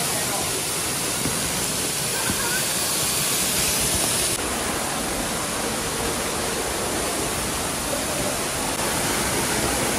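Waterfall rushing: a loud, steady roar of falling water. Its highest hiss thins abruptly about four seconds in.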